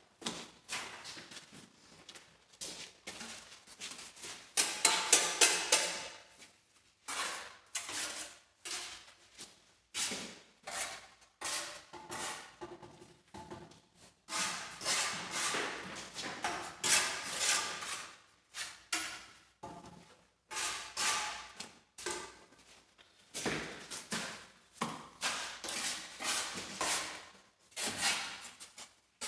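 Repeated knocks and scrapes of hand tools on hard material, coming in bursts, with a fast run of loud strikes about five seconds in.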